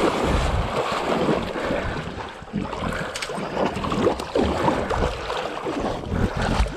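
Water sloshing and swishing as people wade through deep water, with wind and handling rumble on the microphone.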